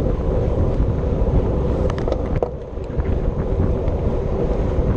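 Wind rushing over the microphone of a camera riding on a racing bicycle at speed, a steady low buffeting with a few short clicks about two seconds in.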